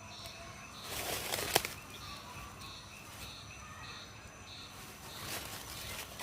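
Outdoor ambience: a high chirp repeats about every 0.6 s throughout. A rustling burst ends in a sharp click about a second and a half in, and a softer rustle follows near the end.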